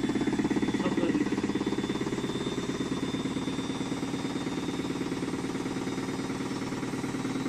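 Siemens condenser front-loading washer-dryer spinning its drum on the spin cycle: a steady hum with a fast, even pulsing and a thin high whine. The repairman judges it normal spin noise grown louder with age, not a shock-absorber fault.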